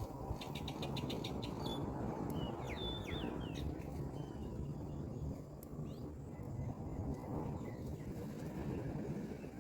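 Bird calls: a quick run of ticks, then a few sharp chirps two to three seconds in and fainter ones after, over a steady low rumble.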